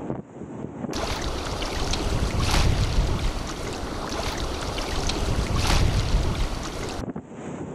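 Wind and sea rushing past a fast-moving boat, then a louder, fuller rush of wind and waves that swells twice, about three seconds apart, before falling back near the end.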